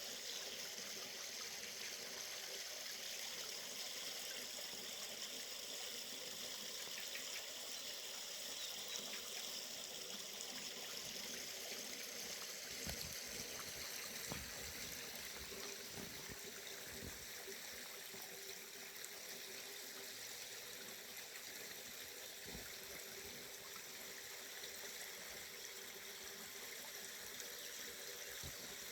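River water running steadily, a continuous rushing and trickling flow. A few faint low bumps come in around the middle.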